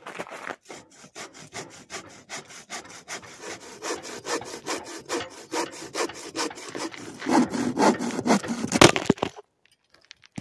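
Bow saw cutting through a dry, weathered log with steady back-and-forth strokes. The strokes grow louder near the end and stop about nine seconds in.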